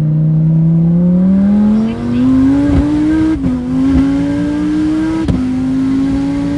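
Twin-turbocharged 8.4-litre V10 of a Dodge Viper ACR-E at full throttle, heard from inside the cabin, its pitch climbing as the car accelerates hard. The pitch drops twice, about three and a half and five seconds in, as it shifts up through its six-speed manual gearbox.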